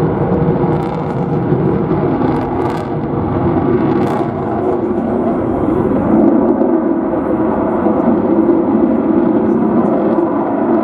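Twin jet engines of a Qatari F-15 fighter in a display pass overhead: a continuous, deep rushing jet noise, dipping slightly about three seconds in and swelling again a few seconds later.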